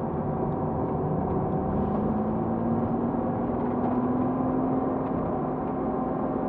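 2007 Porsche Cayman S's 3.4-litre flat-six engine running steadily, heard inside the cabin, its pitch rising gently over a few seconds and then holding.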